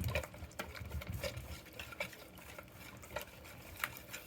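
Whisking a wet marinade of jerk seasoning and sauces in a bowl, with repeated irregular clicks and scrapes of the utensil against the bowl.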